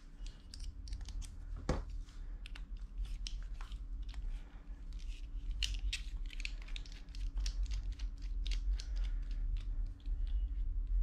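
Irregular small clicks and rattles of hands handling a precision screwdriver kit, picking through its metal bits in the open case and fitting one to the screwdriver, over a faint steady hum.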